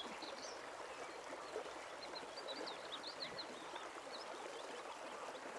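Water pouring from a mine-water filtration pool's outfall channel into a stream, a steady rushing, with small birds chirping over it now and then.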